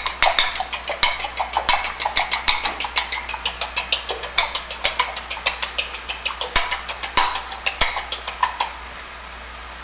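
Egg being beaten in a small ceramic bowl, the utensil clicking quickly and steadily against the bowl's side; the beating stops about a second before the end.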